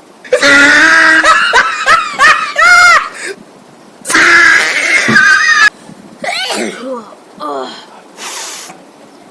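A woman sneezing and laughing: two loud outbursts, about half a second and four seconds in, each followed by quieter giggles.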